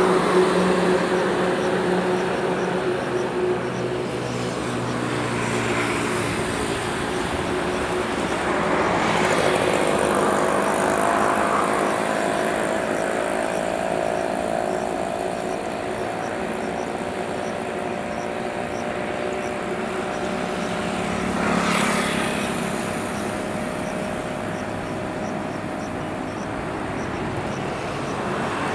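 Jet engines of a distant taxiing airliner, a steady whine made of several tones that shift slightly in pitch. Two brief rushing swells pass over it, about 9 and 22 seconds in.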